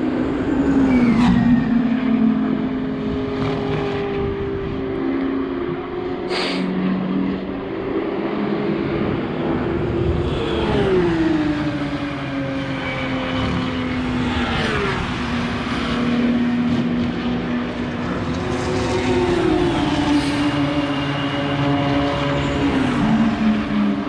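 Several track-day cars lapping the circuit at speed, their engine notes overlapping without a break. About five times an engine note sweeps down in pitch as a car goes by.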